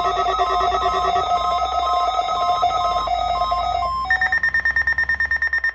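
Electronic alarm of a weather radio receiver going off for the weekly test: a fast-pulsing, multi-tone ringing pattern that switches about four seconds in to a single high beep repeating in rapid pulses.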